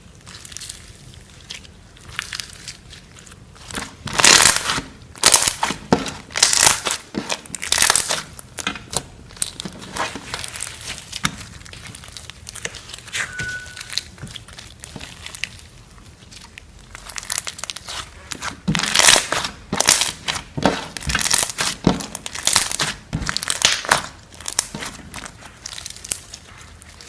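Floam slime, slime packed with small foam beads, being squeezed and kneaded by hand: irregular crunching and crackling of the beads, coming in two busy spells with quieter squishing between.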